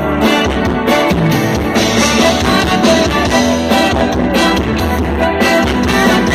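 Live band music played loud through a stage sound system during a soundcheck.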